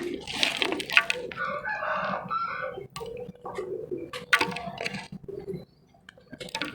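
Hard, dry shapes crunching and crumbling in a series of crackly bursts, with a short pause near the end.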